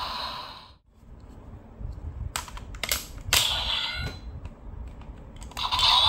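Sharp plastic clicks and handling noise as the DX Raising Sword is fitted into the Command Twin Buckle on the DX Desire Driver toy belt. About three clicks come in quick succession midway. The toy's electronic sound fades out in the first second, and a new toy sound starts up near the end.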